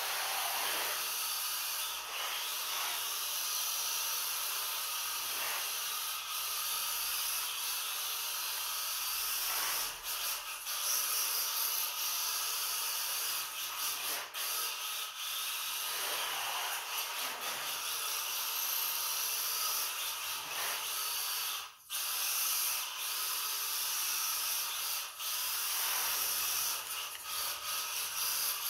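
Mini RC drift car's hard tyres hissing and scrubbing across a tiled floor as the rear-wheel-drive car slides sideways through corners, the sound swelling and fading with throttle and direction changes and dropping out briefly once near the end.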